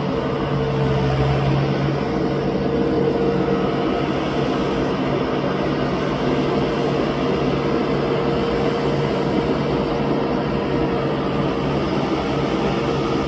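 Blue New Holland tractor's engine running steadily with a constant drone as it pulls a PTO-driven rotary harrow through a flooded rice paddy, puddling the mud.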